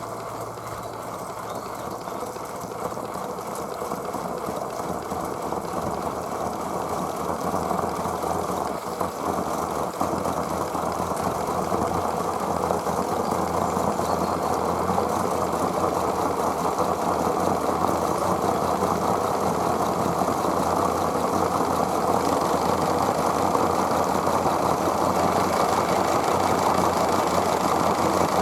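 Aster West Country Gauge 1 live steam locomotive under steam: a steady rushing noise that grows louder over the first dozen seconds, then holds.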